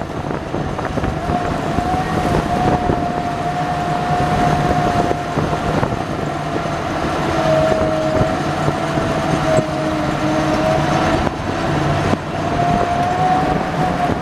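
Amphibious Army Duck (DUKW) boat under way on the water: engine and drive running steadily with a high whine that holds one pitch, over water rushing and churning along the hull.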